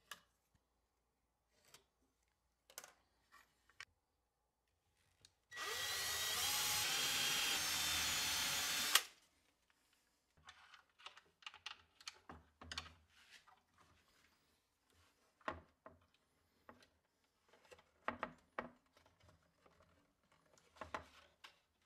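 A power drill boring into a softwood block for about three and a half seconds, its pitch shifting as it cuts, then cutting off with a click. Before and after it come soft clicks, taps and rubbing from handling wood and small metal parts such as a bolt in a T-track.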